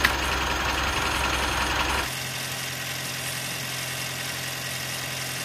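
Car engine idling under the open bonnet, with a sharp click right at the start. About two seconds in, the sound changes suddenly to a quieter, steady hum.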